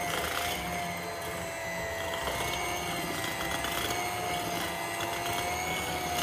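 Electric hand mixer running at one steady speed, a constant motor whine as its twin beaters mix buttercream in a bowl.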